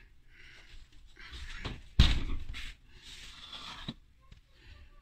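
Kitchen handling noises, then a solid thud about two seconds in as the oven door is shut.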